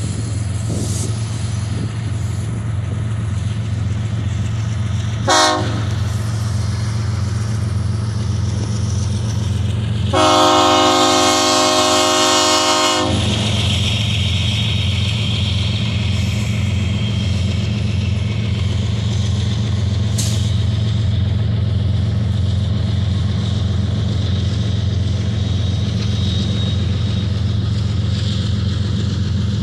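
Union Pacific diesel freight locomotives sounding their air horn at a grade crossing: a short toot about five seconds in, then a long blast of about three seconds around ten seconds in. Both sound over a steady low engine rumble as the train pulls slowly away from a stop.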